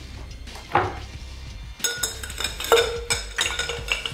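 Metal bar tools clinking and rattling against a metal mixing tin, which rings, in a quick run from about two seconds in after a single knock. Background music plays underneath.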